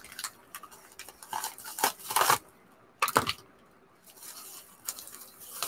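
A paper envelope being torn open, then a bubble-wrap pouch crinkling as it is handled: irregular rustling and crinkling, loudest about two seconds in.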